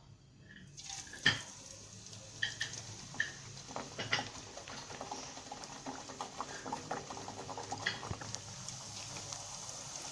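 Flat rice-flour thattai dough discs frying in hot oil: a hiss starts about a second in and keeps on, with crackling and a few sharp clicks as more discs go in.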